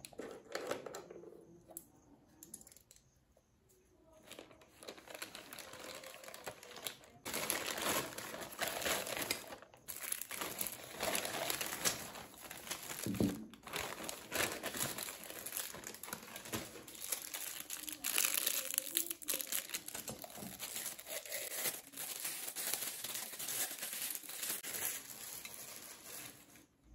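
Plastic packaging crinkling and rustling by hand as a poly mailer and the plastic bag around an acrylic pen holder are opened and handled, with some tearing of plastic. Faint at first, then steady crackly handling from a few seconds in.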